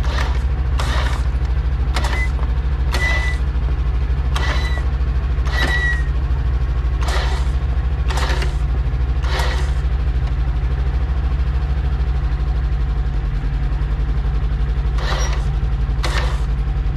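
Vehicle engine idling steadily, with a series of sharp clicks or knocks about once a second for the first ten seconds and again near the end.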